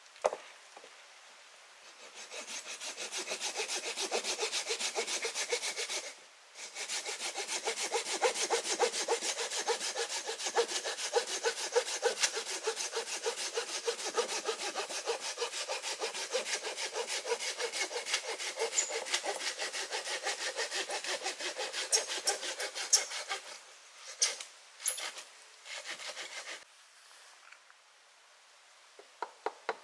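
Hand saw cutting through wood in quick, even back-and-forth strokes, with one brief pause after a few seconds. The sawing stops and gives way to a few separate knocks of wood.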